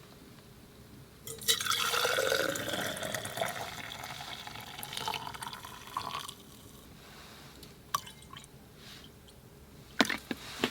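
Warm water being poured into a thermos for about five seconds, the pitch rising as the bottle fills. A few sharp clicks follow near the end.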